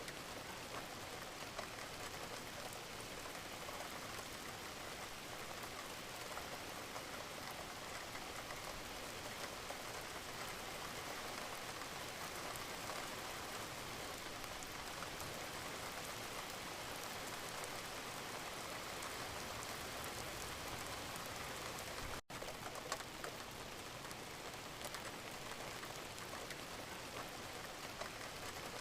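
Steady rain with a dense patter of drops hitting a surface. The sound cuts out for an instant about three-quarters of the way through, then resumes.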